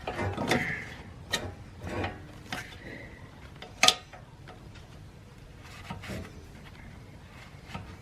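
Hand tools scraping and clicking against a steel exhaust hanger as it is pried out of its rubber bushing, in scattered short strokes. The sharpest click comes about four seconds in.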